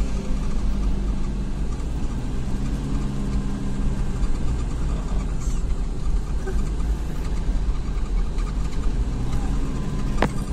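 A car driving on the road, heard from inside the cabin: a steady engine and tyre rumble, with one sharp click near the end.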